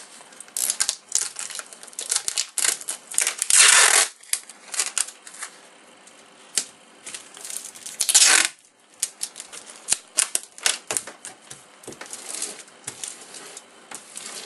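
Wide clear adhesive tape pulled off its roll in two long rips, amid the crackling and crinkling of aluminium cooking foil as the tape is laid onto it.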